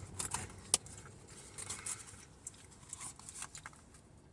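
Faint handling noises: light rustling and scattered small clicks, with one sharp click about three quarters of a second in.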